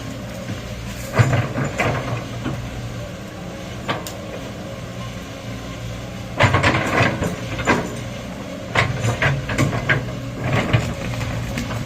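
An excavator's diesel engine running steadily, with several spells of knocking and clanking.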